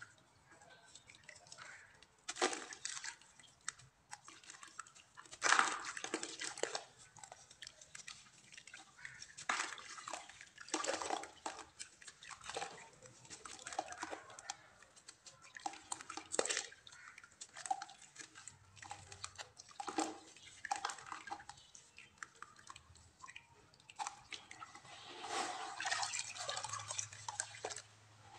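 Hands crumbling and squeezing lumps of wet clay in a basin of water, with irregular splashes, drips and sloshes. Near the end a longer stretch of sloshing as the hands stir the muddy water.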